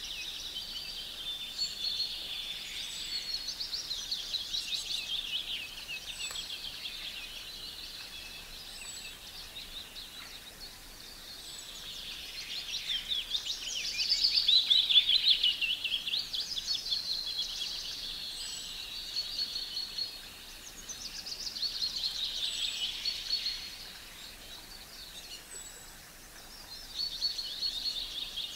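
Songbirds singing: repeated phrases of fast high trills and whistles, loudest about halfway through, with short high chirps between them.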